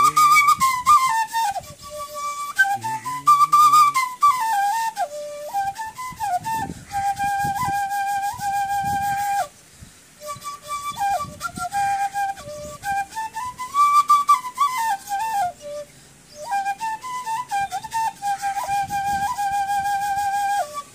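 Bansuri (Indian side-blown flute) playing a Nagpuri folk tune: a single melody moving up and down in short phrases, each phrase ending on a long held note with a slight waver. There are short pauses about nine and a half and sixteen seconds in.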